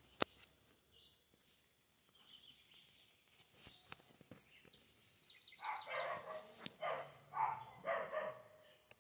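Animal calls: a run of short, repeated cries in the second half, starting with a quick high trill. A sharp click comes just after the start.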